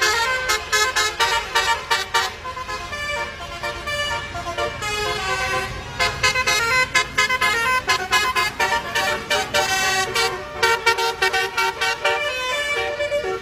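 Indonesian 'telolet' bus horn playing a quick melody of multi-tone honks, note after note, with a low rumble underneath.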